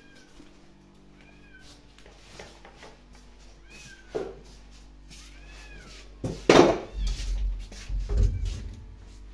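A kitten meowing, four short meows in the first five seconds. About six and a half seconds in comes a loud knock, followed by low bumping and rumbling.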